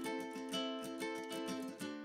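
Background music: plucked ukulele or guitar playing a light melody over quick picked notes.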